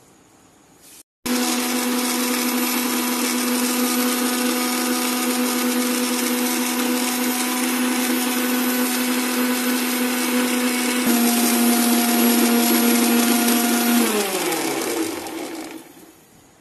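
Electric mixer grinder with a stainless steel jar blending watermelon chunks and ice. The motor starts abruptly about a second in and runs with a steady whine. It drops to a slightly lower, louder note about eleven seconds in, then is switched off and winds down with a falling pitch near the end.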